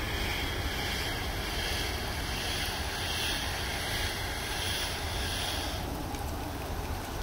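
Wind rumbling on the microphone over a steady hiss of falling sleet and rain. The hiss thins out about six seconds in.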